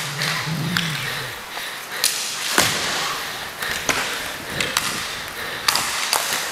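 Inline hockey skate wheels rolling and scraping on the rink floor, broken by a dozen or so sharp clacks of sticks and puck during roller hockey play.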